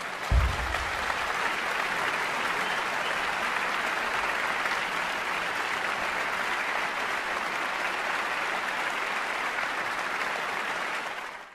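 Large concert-hall audience applauding, a dense steady clapping that swells up at once and holds, then cuts off at the very end. A single low thump sounds about half a second in.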